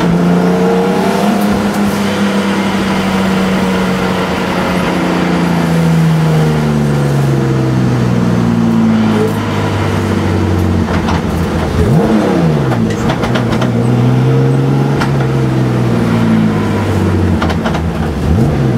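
Turbocharged BMW E46 M3 race car's engine heard from inside the stripped cabin, its pitch falling slowly as the car slows off. About twelve seconds in the revs swing quickly up and down with a few sharp cracks, then the engine settles and drops again near the end.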